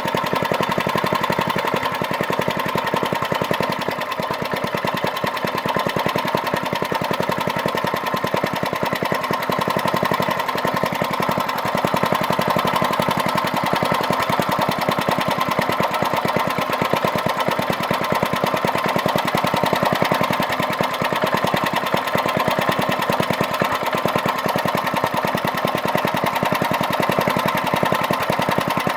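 1995 Briggs & Stratton small engine on a go-cart running steadily at an even speed, with a rapid regular firing beat; a long-idle engine brought back to life after seven years without starting.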